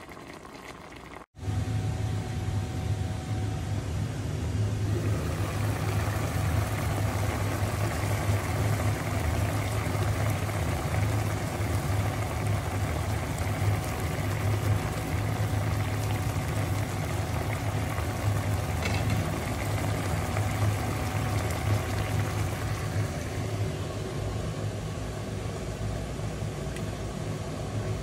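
A pot of fish stewing in vinegar broth boiling hard, a steady bubbling over a low hum. The sound drops out for an instant about a second in and comes back louder.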